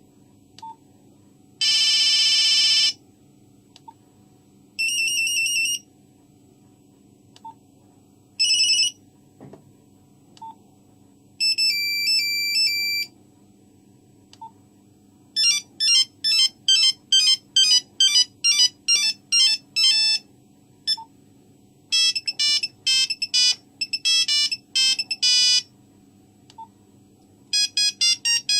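Nokia 3310 mobile phone playing monophonic ringtones: buzzy electronic beeps, first a few short snippets with pauses between them, then from about fifteen seconds in longer runs of quick notes forming a tune.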